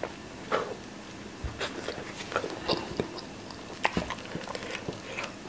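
Eating sounds: chewing and mouth smacks, with scattered light clicks, some from a fork on a plate.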